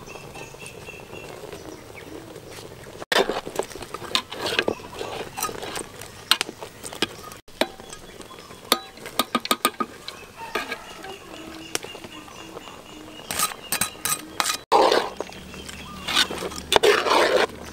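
A metal ladle clinking and scraping against a metal cooking pot as ingredients are tipped in and stirred: quick runs of sharp clinks, then a rustling, scraping stir near the end.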